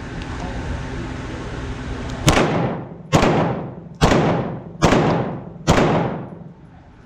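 Five pistol shots fired one-handed, a little under a second apart, each followed by a reverberating tail.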